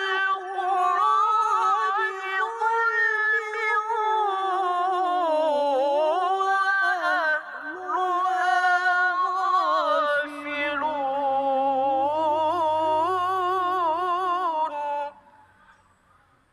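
A young male reciter chanting the Quran in the melodic tilawah style, one long ornamented phrase whose pitch wavers and glides up and down. The voice stops about 15 seconds in, leaving near silence.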